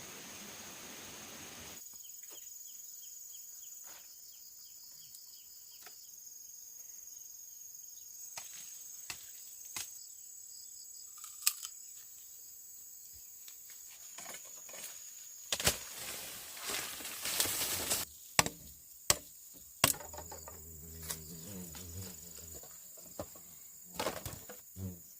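Steady high-pitched insect chirring, with scattered sharp knocks that come thicker and louder in the second half.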